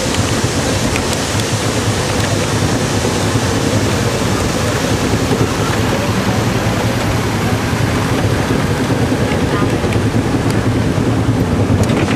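Cog railway train running, heard from aboard: a steady, loud rumble and rush of noise with no clear rhythm.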